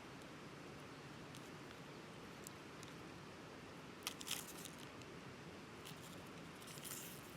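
A plastic snack wrapper crinkling in short sharp bursts, about four seconds in and again near the end, over a faint steady hiss.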